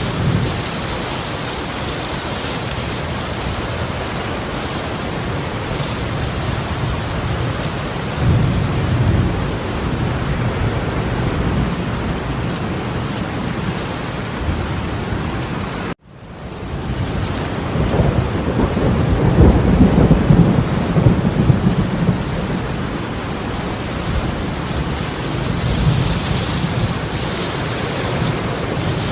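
Heavy torrential rain hissing steadily, with two stretches of low rumbling swelling over it, the second the louder. About halfway through, the sound cuts out abruptly and fades back in.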